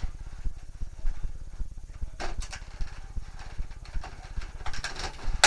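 Plastic clicks and knocks of a Nerf Titan blaster being handled as an attached Nerf Hornet is worked loose, a couple of clicks about two seconds in and a cluster near the end ending in a sharp snap, over a steady rapid low throbbing.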